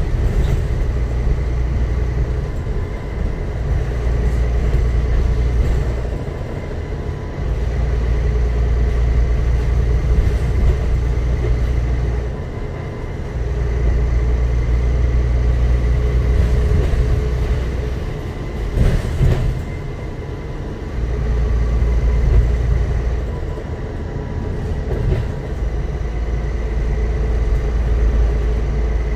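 Interior sound from the upper deck of a Dennis Trident double-decker bus under way. A deep engine and road drone swells and eases several times as the bus pulls and slows. A steady high whine runs throughout, and there is a single knock of a rattle about two-thirds of the way through.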